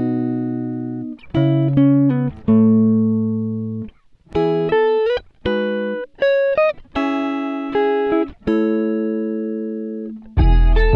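Background music: a slow melody of plucked guitar notes, each starting sharply and ringing away, some with a slight bend in pitch. A fuller accompaniment with bass comes in near the end.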